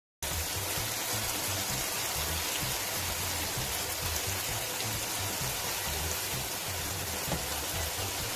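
Onion-and-tomato masala sizzling steadily in hot oil in a pan. It starts abruptly just after the beginning.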